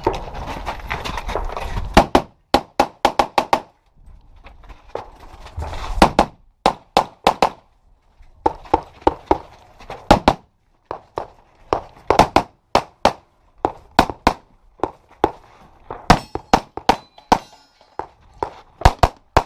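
Handgun shots fired in quick strings of two to five with short pauses between, the pace of a practical pistol stage run. Wind rumbles on the microphone in the first couple of seconds and again around five seconds in.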